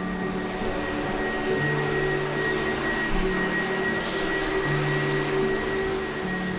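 Upright vacuum cleaner running steadily as it is pushed back and forth over a rug, its motor giving an even hiss with a thin, steady high whine.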